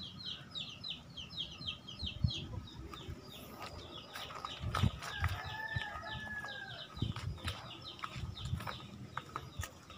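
A bird calling in a fast run of short, high, falling chirps, about six a second, in two spells. About halfway through, a rooster crows once in the distance, over low bumps and rustling from the camera being carried through the vegetation.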